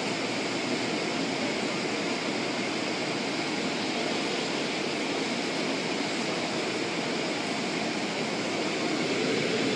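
Automatic car wash equipment running with a steady rushing noise.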